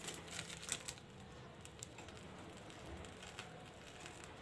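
Quiet handling sounds over a faint steady hum: a few soft clicks in the first second, then only scattered ones, as whipped cream is squeezed from a piping bag onto the cake's edge.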